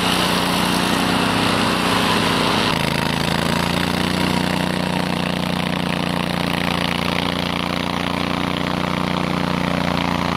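Honda iGXV800 V-twin engine of a Stella URS100 tracked rotary brush mower running at high revs under load, its blade engaged and mowing through bracken. The sound changes abruptly about three seconds in, the cutting hiss easing and the engine note settling lower.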